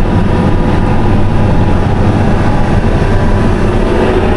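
Heavy farm machinery's diesel engine running steadily under load, with a loud, even low drone heard from inside the cab.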